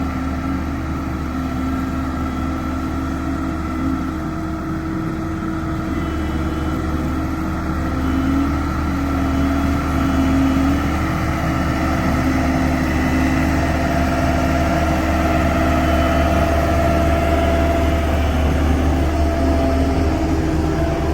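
Engine of a heavy construction machine running steadily with a deep hum, getting a little louder about eight seconds in.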